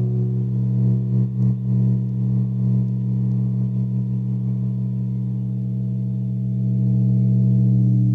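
Hybrid VCV Rack and Eurorack modular synthesizer holding a drone of two low, steady, sine-like tones with fainter tones above. The drone wavers briefly about a second in and grows a little louder near the end.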